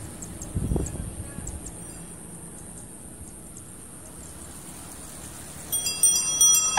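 Steady outdoor road background with a brief low rumble less than a second in, then near the end a bicycle bell rung several times in quick succession, each ring metallic and sustained, as the riders come past.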